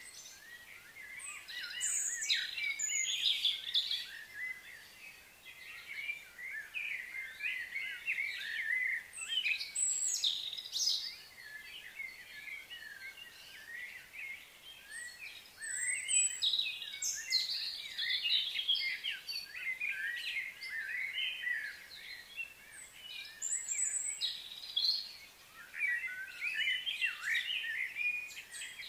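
Several birds chirping and chattering, many short overlapping calls that swell and fade in waves every few seconds.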